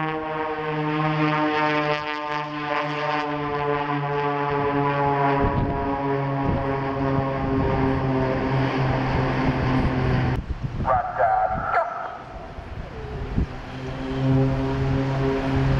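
Propeller-driven aerobatic plane's piston engine and propeller droning steadily overhead; the pitch drops about five seconds in. The drone breaks off for about two seconds past the middle, then comes back.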